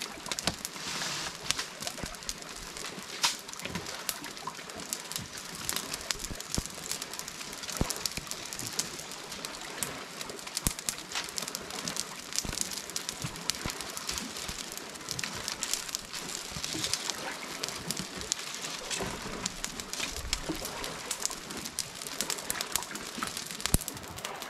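Dry palm fronds burning in an open fire, crackling with many small pops and snaps.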